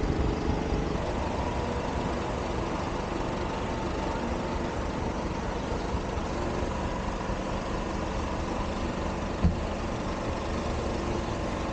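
Narrowboat engine idling steadily while the boat sits at the bank, with a single short thud about three-quarters of the way through.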